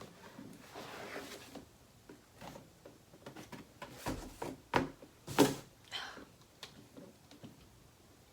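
Cardboard packaging of a laptop box being handled: scattered rustles and light clicks, with two louder knocks about five seconds in.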